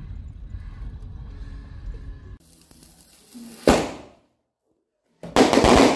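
Fireworks set off from a handheld launching tube: one sharp bang a little past halfway, then, after a short gap, a louder and longer blast near the end. Before that, the low rumble of a car driving, under background music.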